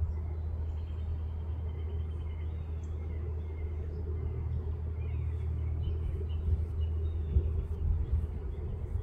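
Steady low outdoor rumble with faint, short chirping calls of small birds now and then.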